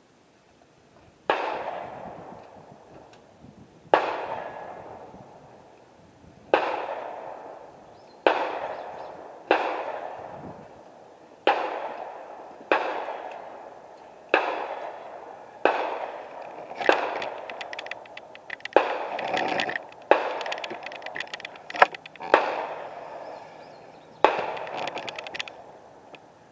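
Rifle shots at an outdoor range: about fifteen sharp reports at irregular gaps of one to three seconds, each trailing off in a long echo. The shots come quicker near the middle.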